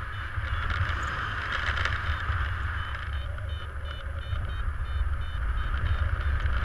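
Wind rushing over the camera microphone during paraglider flight, with a variometer beeping in short pulses of one pitch, the beeping that signals climbing air in a thermal.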